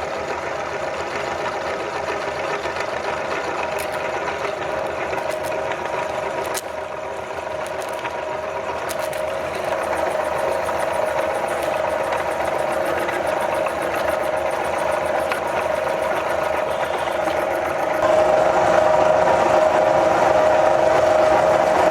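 Electric meat grinder's motor running steadily with a steady hum as it grinds ice cream, getting louder near the end.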